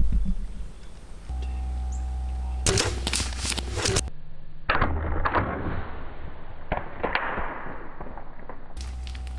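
Two bows shot almost together at feral hogs: a cluster of sharp snaps of string and arrow about three seconds in, then scattered cracks and a rushing hiss as the hogs bolt. Both arrows missed.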